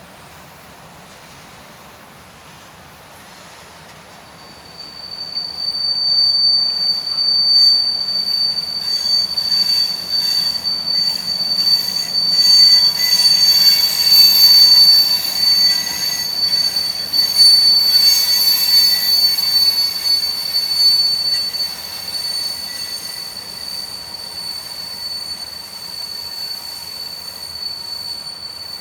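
Train rolling past with its wheels squealing: one steady high-pitched squeal starts about four seconds in and holds throughout, over the rumble and clatter of the passing cars, which is loudest mid-way and then eases.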